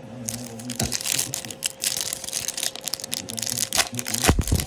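Foil wrapper of a trading-card pack crinkling and tearing as it is ripped open by hand, with a dull low bump near the end.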